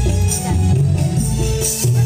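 Music with a heavy, stepping bass line and a steady beat.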